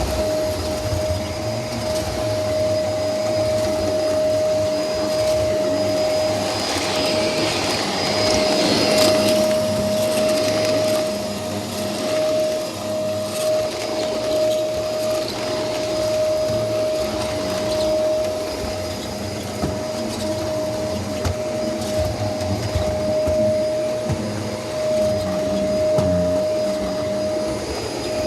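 Vacuum cleaner running steadily on a rug, its motor giving a constant high whine. About seven to ten seconds in a louder rushing hiss rises over it, then settles back.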